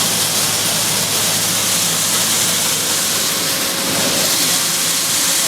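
Corn milling plant machinery running: a loud, steady, hissing machine noise with a steady low hum beneath it.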